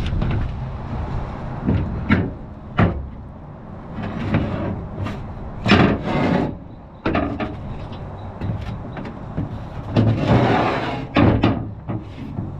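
Metal clanks and knocks of tools on the brush cutter's gearbox shaft nut as it is worked loose, with a longer noisy burst near the end, over a steady low hum.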